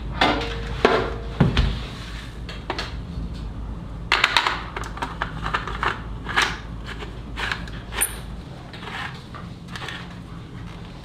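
Irregular clattering and rattling, like hard objects being handled, over a low steady hum that stops about eight and a half seconds in.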